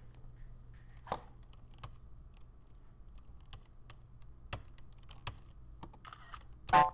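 Computer keyboard and mouse clicks: a handful of separate sharp clicks spread over several seconds, with a much louder, briefly ringing knock near the end.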